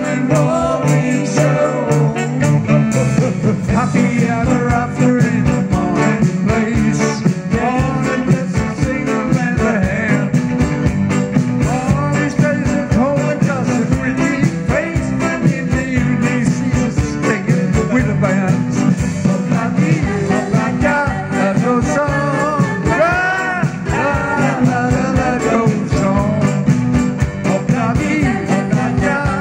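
A live band playing with a singer over a steady beat.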